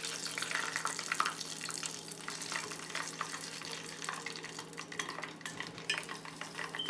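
Hot oil in a small saucepan sizzling and crackling as a spoon stirs chili powder into it.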